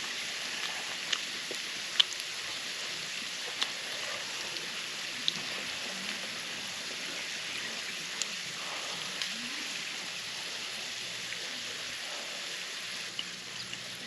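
Food frying in a pan: a steady sizzling hiss with scattered small pops.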